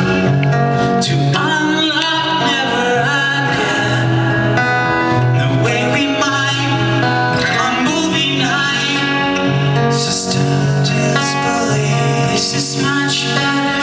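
Live acoustic band music: a man singing into a microphone over acoustic guitar, with long held low notes underneath.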